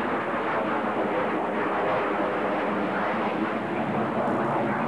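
Steady jet roar of an F-111E taking off and climbing out on its departure route.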